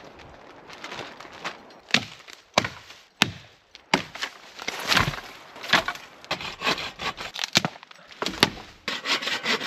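Dry wood being broken and handled: irregular sharp cracks and snaps of branches mixed with scraping and rubbing of wood on wood.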